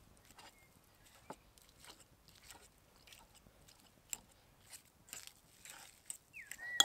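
Boiled potatoes being coarsely mashed with a fork in a bowl: faint, irregular squishing and scraping strokes.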